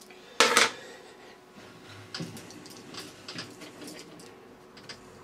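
Workshop handling noises at a lathe: a sharp clatter about half a second in, then several lighter knocks and clicks as hand tools and the dial indicator are handled around the collet chuck.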